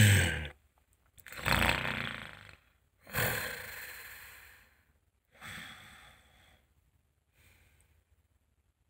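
A man snoring in a put-on way: four long, noisy snores about two seconds apart, each fainter than the last, dying away near the end.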